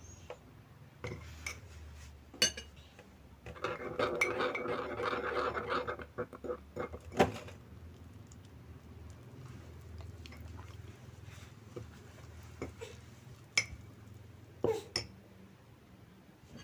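A spoon clinking and scraping against a ceramic tea mug while flour is mixed into mug-cake batter, with a louder stretch of scraping about four seconds in and scattered single clinks.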